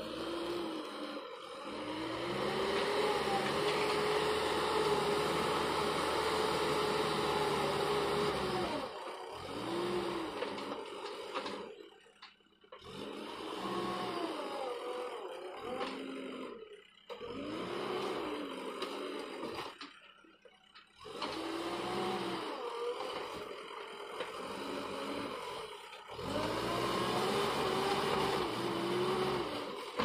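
JCB Eco Xpert backhoe loader's diesel engine revving up and settling back again and again under load while it pushes soil with the front bucket and reverses. The engine note rises and falls every few seconds and is broken off suddenly a few times.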